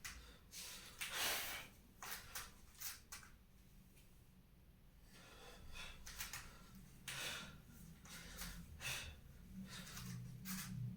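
A person's hard breathing from exertion: a string of short, sharp exhalations and breaths, loosely spaced, with a gap in the middle.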